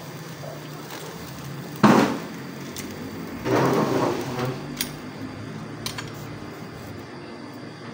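Metal kitchen tongs clinking and scraping against a wire grill rack over a gas burner as grilled prawns are lifted onto a plate. There is one sharp clank about two seconds in, a longer scraping clatter around the middle, then a few light ticks.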